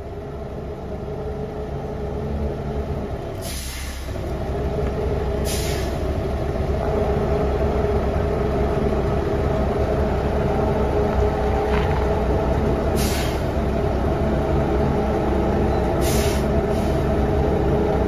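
Heavily loaded FAW dump truck's diesel engine working hard at low speed, growing louder over the first several seconds and then holding steady. Short air hisses from the air brakes break in four times.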